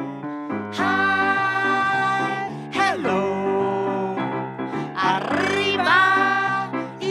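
A woman singing with grand piano accompaniment, calling out "Hello!" and "Arriba!" in the melody, with long held notes and quick upward slides in pitch.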